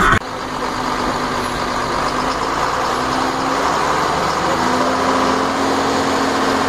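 Heavy vehicle engines running as a bus and a truck squeeze past each other at close quarters: a steady engine hum with road noise, the hum rising slightly in pitch about halfway through.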